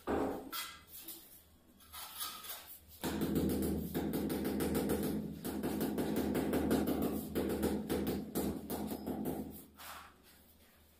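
Rubber mallet tapping a large ceramic floor tile down into its mortar bed: a sharp knock at first, then a fast, steady run of dull taps lasting several seconds that stops shortly before the end.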